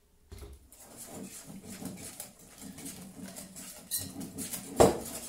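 A spoon stirring thick oat-flour and kefir batter in a bowl: a continuous run of small wet scrapes and clicks, with one sharp knock against the bowl near the end.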